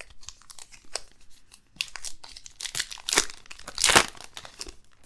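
Baseball card pack wrapper torn open by hand and crinkled: a run of crackling rips, the longest and loudest tear about four seconds in.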